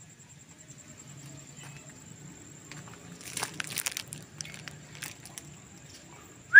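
Faint rustling and crinkling with a few soft clicks, busiest about three to four seconds in, over a thin steady high-pitched whine. A short rising whistle starts right at the end.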